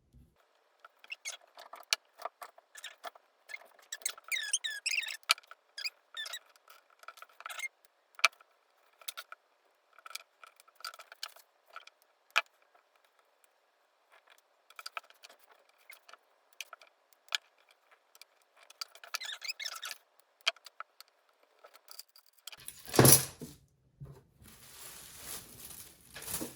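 Plastic bead strands and plastic fringe being handled: scattered clicks of beads knocking together, with short high squeaks as beads are pushed and pulled through small holes cut in the plastic. Near the end a single louder knock, then steady rustling of the plastic.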